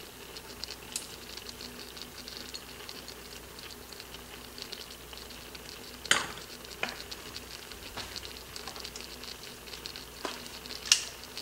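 Chicken, Marsala wine and green onions simmering in an Instant Pot's stainless inner pot on the sauté setting: a steady patter of small crackles and sizzles. A few light knocks and clinks break in, the loudest about six seconds in and another near the end as the lid is handled.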